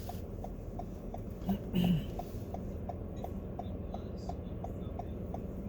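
Inside a moving car: a steady low engine and road rumble, with an even clicking about three times a second from the turn-signal indicator.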